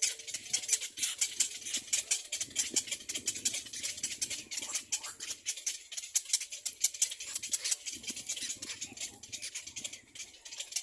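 Birds at a nest: rapid, irregular clicking and crackling chatter with rustling.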